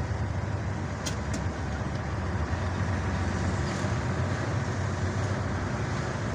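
Steady engine and road noise from inside a moving vehicle's cabin, with a low engine hum throughout. Two short ticks about a second in.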